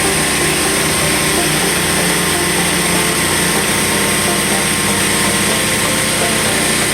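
A Yordan 25 HP petrol engine driving a fire-fighting water pump, running steadily at a constant speed.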